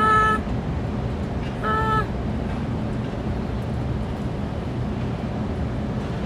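Steady city street traffic rumble, with two short car-horn beeps: one right at the start and another about two seconds in.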